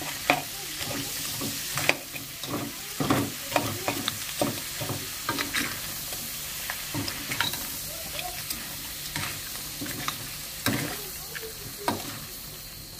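A holy-basil stir-fry sizzling steadily in a hot pan, with a utensil stirring it: irregular scrapes and clinks against the pan, several a second in places.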